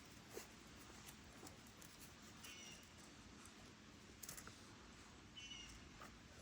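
Near silence, with a faint short high squeak from a small animal twice, about two and a half and five and a half seconds in, and a few light clicks.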